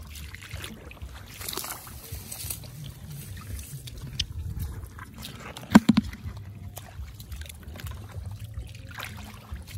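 Shallow muddy rice-field water sloshing and trickling as a hand digs and rummages through it. About six seconds in comes a brief cluster of three sharp knocks, the loudest sound here.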